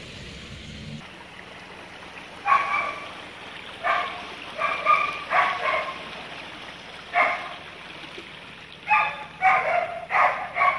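A dog barking repeatedly, in single barks and quick bunches, starting a couple of seconds in, over a steady background hiss.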